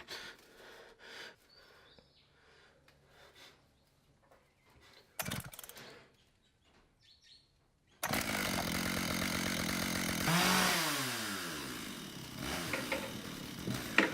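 Faint rustling and a single knock about five seconds in, then about eight seconds in a chainsaw suddenly starts up loud and keeps running, its pitch dropping once about two seconds later.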